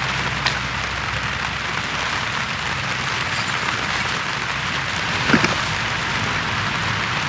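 Steady rain falling, an even hiss with a low rumble beneath. A faint tick comes about half a second in and a brief knock a little past five seconds.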